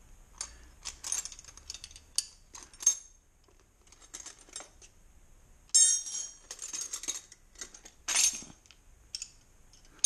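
Steel combination wrenches clinking and rattling against each other as they are picked through and lifted from a plastic wrench rack, with louder clatters about six and eight seconds in.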